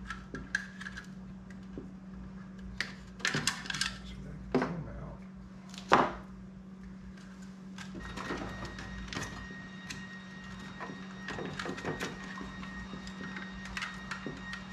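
Scattered clicks and knocks from hands handling parts and wiring inside a table saw's housing, with a sharper knock about six seconds in and denser small rustling toward the end, over a steady low hum.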